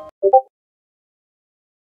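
Background music cutting off, followed about a quarter second in by a short two-note electronic chime, a chat-message pop sound.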